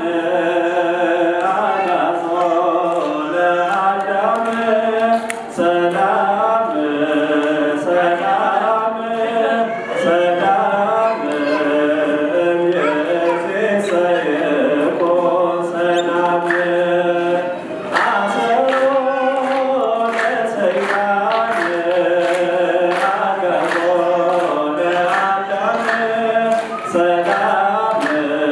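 A man singing a slow church hymn solo into a microphone, unaccompanied, holding long notes and sliding between them in a chant-like melody.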